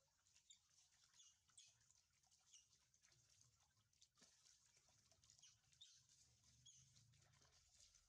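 Very faint: water pouring and splashing over a baby monkey being washed, with repeated short high squeaks from the monkey.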